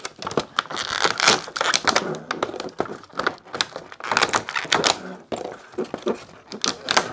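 Thin clear plastic packaging tray crinkling and crackling as small plastic toy parts are pushed out of it, in quick runs of sharp clicks.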